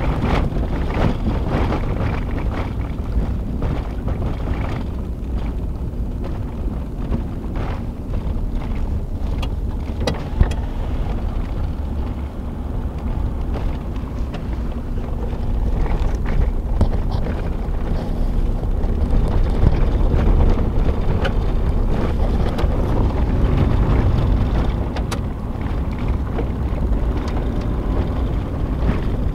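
Pickup truck driving over rough ground, heard from inside the cab: a steady low rumble of engine and tyres with scattered knocks and rattles, louder through the middle stretch.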